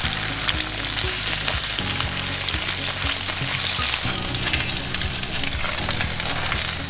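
Breaded fish fillets sizzling steadily as they fry in hot oil and butter in a nonstick pan, with small clicks of a plastic spatula as the fillets are lifted and moved.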